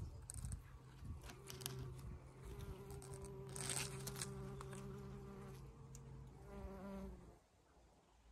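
A bee buzzing close by: a steady hum that wavers slightly in pitch and fades away a little after seven seconds in, with a few faint rustles.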